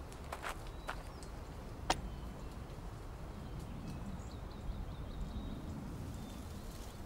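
Forest ambience: a steady low rumble with faint bird chirps. A few light clicks and rustles come in the first two seconds.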